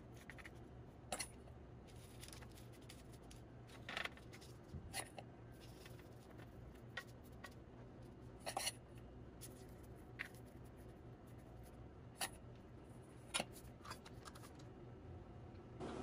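Metal spoon scooping chopped nut mixture and pressing it into mounds on a paper-lined metal sheet pan: about a dozen short, crisp scrapes and clicks at irregular intervals, some drawn out into brief scrapes.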